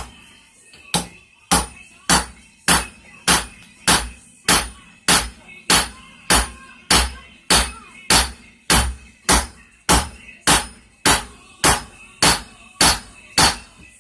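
Hammer blows on a railroad spike on an anvil, struck in a steady rhythm of just under two a second, about twenty-two blows starting about a second in, with a metallic ring between them.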